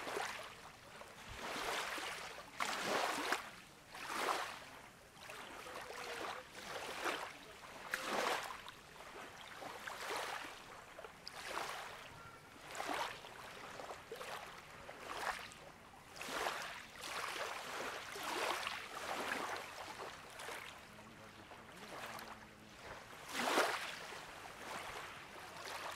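Small waves lapping and washing, in uneven swells about a second apart.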